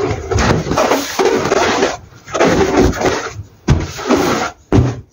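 Fishnet-gloved hands rubbing and squeezing an inflated latex balloon, a scratchy rubbing sound in stretches broken by three short pauses.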